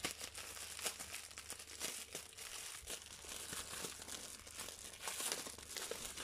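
Thin plastic packaging crinkling and rustling in quick, irregular crackles as a printed paper sheet is pulled out of it by hand.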